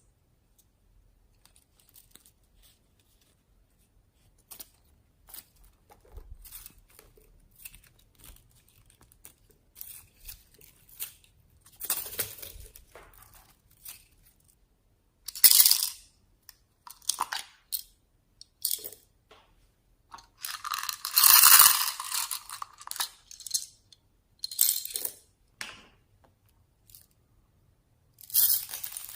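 Slime being mixed and squished by hand: scattered wet crackles, pops and clicks, sparse at first and growing busier, with one sharp loud burst a little past halfway and a longer dense crackling rush about two-thirds of the way in.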